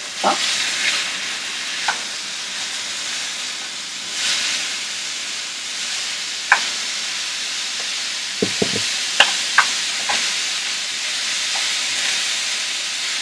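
Onions and ground beef frying in oil in a pan, with a steady sizzle that swells just after the start and again about four seconds in. A few sharp clicks come in the second half.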